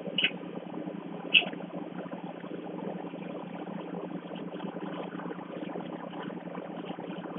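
A drink being gulped down from a can, a steady bubbling, crackling liquid sound with two sharp clicks in the first second and a half, over a low steady hum.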